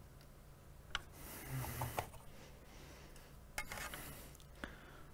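Faint tool work on a circuit board: a few light clicks of a metal tip against the board, two of them followed by a short scratchy rub, about a second in and again past three and a half seconds.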